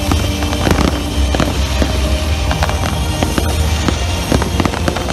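Aerial fireworks display: shells bursting and crackling in quick succession, many sharp bangs over a steady low rumble.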